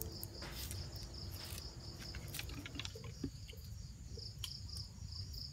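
An insect chirping in an even, quick pulse of about five chirps a second, over a low outdoor rumble with a few faint clicks.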